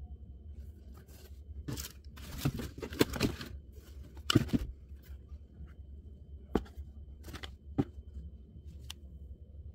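Rustling and scraping as hands handle a pair of adidas Terrex Skychaser hiking shoes, their laces and mesh uppers. It comes in bursts in the first half, then gives way to a few short sharp clicks, over a steady low hum.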